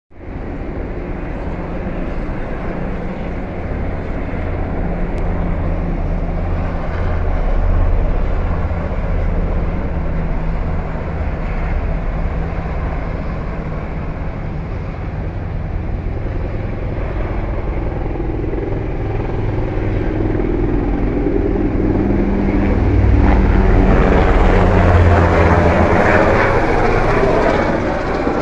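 Helicopter running, with the steady low beat of its rotor blades over engine noise. It grows louder for a few seconds near the end.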